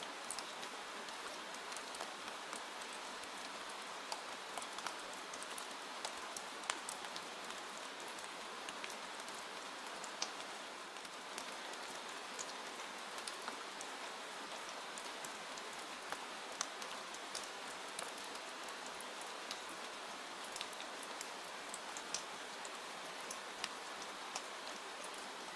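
Steady rain falling on a window pane: an even hiss of rain with scattered individual drops ticking sharply on the glass.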